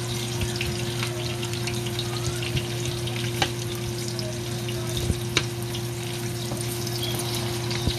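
Large-cut onion pieces frying in oil in a pan over high heat, sizzling steadily with many small crackles. A steady low hum runs underneath, and there are a couple of sharper clicks in the middle.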